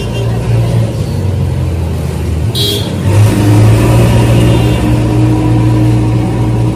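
A motor vehicle's engine running close by, a steady low drone that gets louder about three seconds in. A brief high-pitched sound comes just before it swells.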